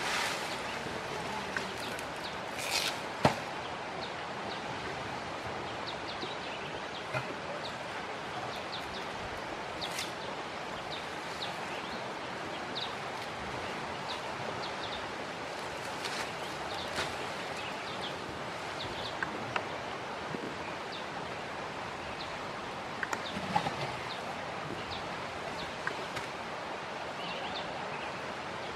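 Asian elephants feeding on palm fronds: scattered rustles and a few sharp snaps of fronds, the loudest snap about three seconds in, over a steady outdoor hiss with frequent short bird chirps.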